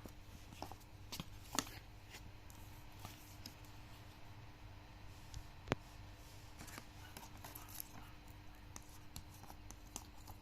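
Hands handling small packaging: faint rustling with scattered light clicks and taps, two sharper clicks about one and a half and six seconds in, over a faint steady hum.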